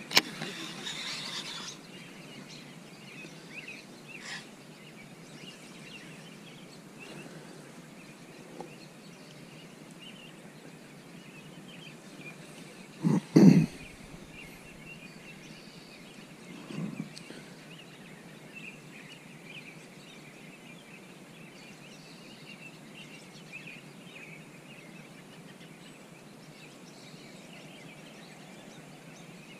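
A cast with a baitcasting reel: a sharp click, then about a second of whirring as the spool pays out line. After that, a quiet steady outdoor background, broken by two dull low bumps about 13 seconds in and a weaker one near 17 seconds.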